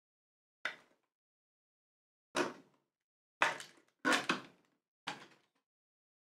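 Plastic parts of a Transformers Bumblebee action figure clicking and knocking as they are folded and snapped into place: six sharp clicks, two of them close together about four seconds in.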